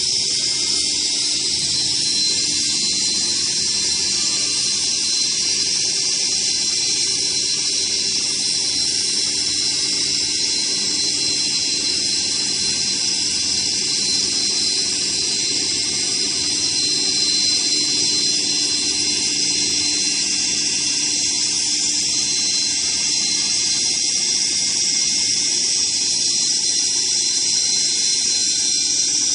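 Machine with a single saw blade and four spindles running: a steady, high-pitched whine over a hiss that holds even throughout.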